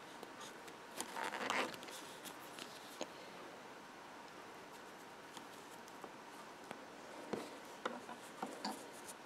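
Faint rustling of yarn and small clicks of a steel crochet hook as stitches are worked by hand, with a brief louder rustle about a second in.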